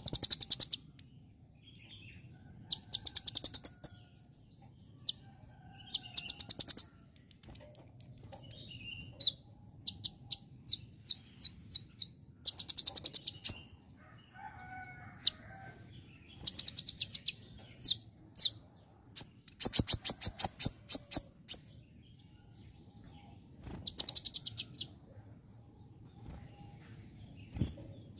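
A male konin sunbird singing vigorously: loud bouts of fast, high, rapidly repeated notes about a second long, again and again, with single sharp chirps in between. The song mimics the ciblek (bar-winged prinia).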